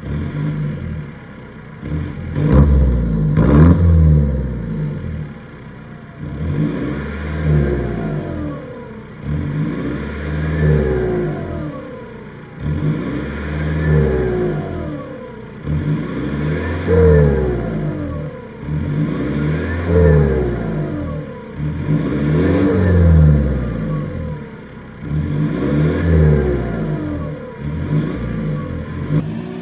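BMW E46 320d's four-cylinder turbodiesel through a straight-pipe exhaust, revved again and again while standing. Each rev rises and falls back towards idle, about every three seconds.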